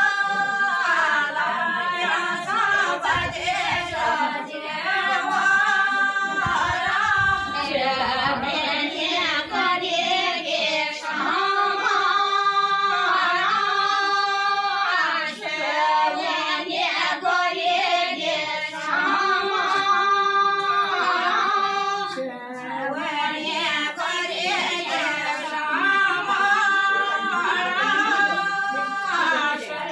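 A group of women singing a Garhwali mangal geet, the ritual song of kanyadan, unaccompanied, in long drawn-out held notes phrase after phrase.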